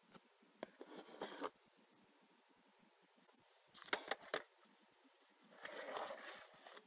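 Plastic videocassette being handled and slid onto a shelf: a few light clicks and knocks in the first second and a half, a cluster of sharper clicks about four seconds in, then a scrape lasting about a second near the end.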